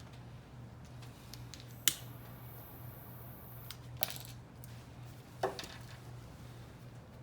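Small metal fishing tackle clinking sharply three times, about two seconds apart, as it is handled while jug lines are rigged, over a low steady hum.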